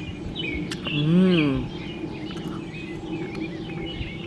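Small birds chirping and twittering throughout. About a second in, a short hummed "mmm" from a person, rising then falling in pitch, is the loudest sound, just after a single click.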